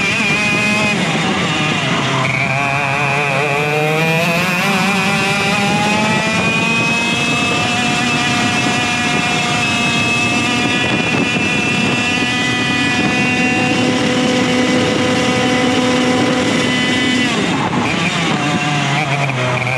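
Vortex Rok GP 125cc two-stroke kart engine at racing speed: its pitch sags in the first two seconds, climbs over the next several seconds as the kart accelerates and holds high, then falls away sharply near the end as the driver lifts for a corner before starting to climb again. Wind rush on the onboard microphone runs underneath.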